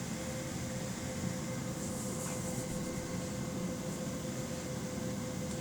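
Steady workshop background hum, like a fan or air-handling unit running, with a faint constant mid-pitched tone.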